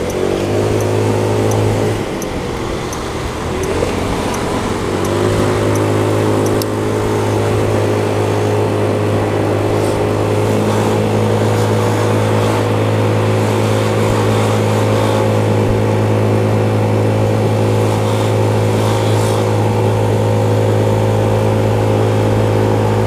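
Motor scooter engine running while riding. It eases back about two seconds in, picks up again around five seconds in, then runs at a steady pitch. Faint regular ticks sound over the first several seconds.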